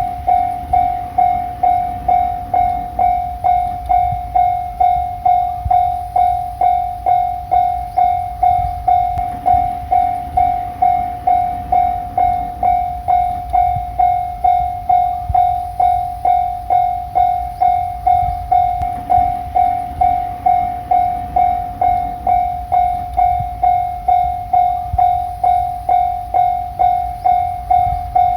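Japanese railway level-crossing warning bell ringing, a single tone repeating evenly about three times every two seconds, over a low rumble.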